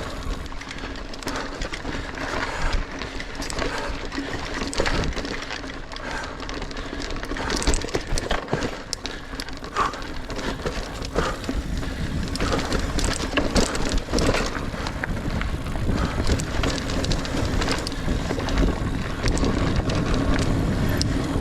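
Niner Air 9 RDO 29er mountain bike riding singletrack: a constant rushing noise of tyres rolling over the dirt, with frequent sharp rattles and clicks as the bike rides over bumps and roots.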